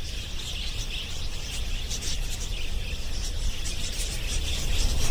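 Dense chorus of high, rapid chirping from wild birds or insects, over a low rumble.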